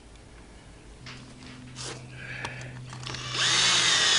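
A cordless drill with a socket extension runs down a water pump housing bolt on an outboard lower unit, starting a little past three seconds in. Its motor whine sinks steadily in pitch while it drives.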